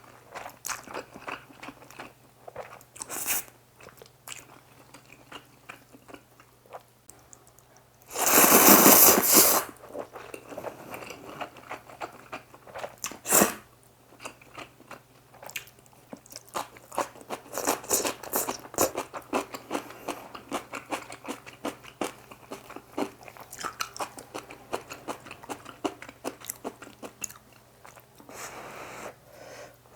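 Close-miked eating of instant squid jjamppong noodles with rice: many wet chewing and smacking sounds and short clicks. A loud rush of noise lasting over a second comes about eight seconds in.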